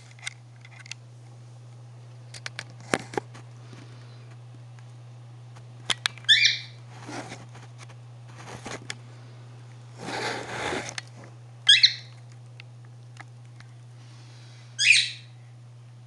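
Pet parrot giving three short, wavering chirp calls spaced a few seconds apart, the loudest sounds here, with scattered light clicks and taps and a brief rustle in between, over a steady low hum.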